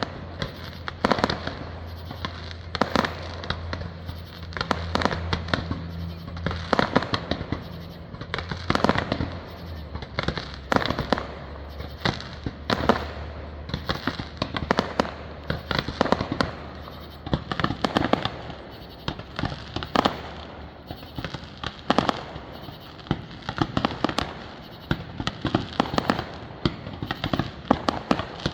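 Aerial fireworks going off in an irregular, rapid series of sharp bangs, one or two a second, over a low steady hum.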